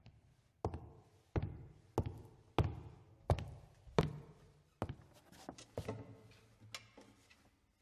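A series of sharp knocks, about one every two-thirds of a second, each ringing briefly, growing weaker and less regular near the end.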